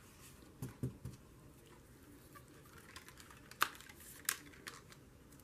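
Faint, irregular clicks and taps of a small piece of paper being handled over a paper journal page.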